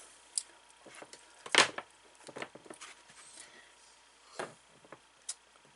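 Scattered clicks and knocks of hands handling a removed dishwasher motor and its wiring while hooking it back up, the loudest about one and a half seconds in; the motor itself is not running.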